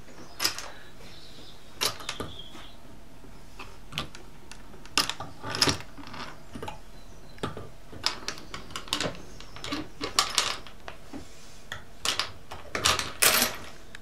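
Irregular metallic clicks, clinks and rattles of a metal starfish attachment on a letterbox tool working against a brass door chain and its slide, as the chain is pushed out of its track; the loudest clatter comes in a cluster near the end.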